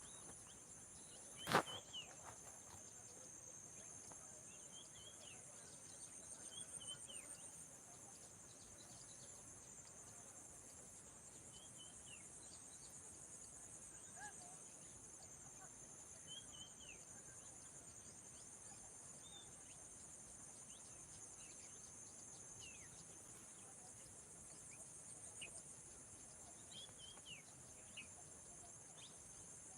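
Faint steady, high-pitched insect chorus with short bird chirps scattered through it, and one sharp click about a second and a half in.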